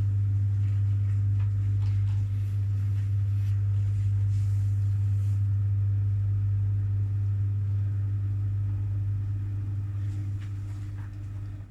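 Front-loading washing machine spinning with its door open: a steady low hum from the drum and motor that starts getting quieter about eight seconds in.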